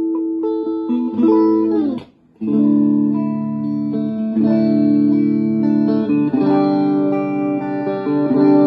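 Electric guitar played through a Davoli Jolly Krundaal tube amplifier, with sustained ringing chords. About two seconds in, a chord slides down in pitch and cuts off briefly before the next chords ring on.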